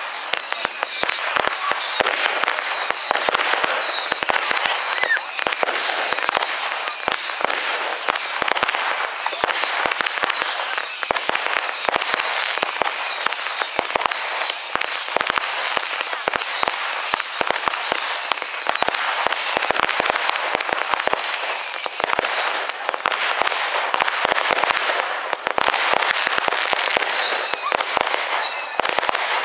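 Fireworks display: a dense, continuous crackle of bangs and pops, with a steady string of short, high falling whistles that pauses briefly about 24 seconds in, then starts again.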